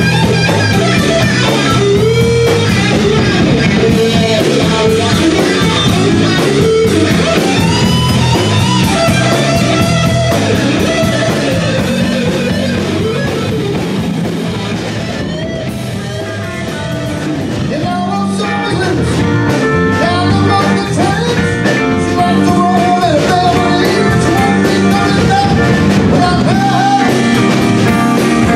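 Live rock band playing: electric guitars over a drum kit, with a singer's voice at times.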